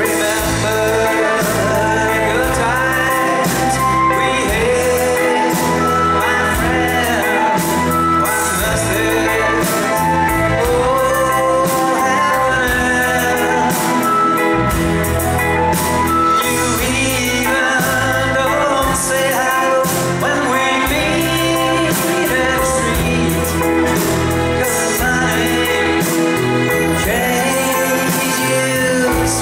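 Live band playing a song: a man sings lead over strummed acoustic guitar, bass and drums, with a steady beat.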